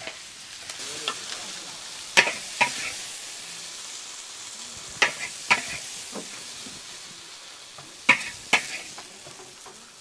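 Stir-frying in a large wok: a steady sizzle of food in hot oil while a metal spatula stirs and scrapes. Three pairs of sharp clanks of the spatula against the wok stand out, about every three seconds.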